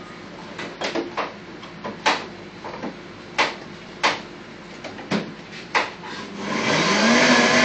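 A series of sharp knocks and clicks as ingredients and utensils are handled at a countertop blender. Near the end the blender motor starts, its pitch rising and then running steady.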